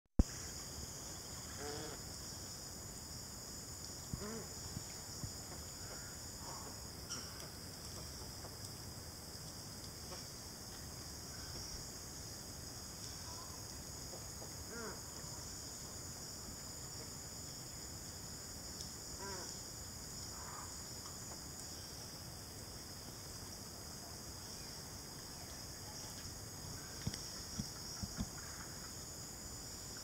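A steady high-pitched insect chorus, broken now and then by short, hoarse grunting calls from a flock of feeding white ibis. A few short knocks come near the end.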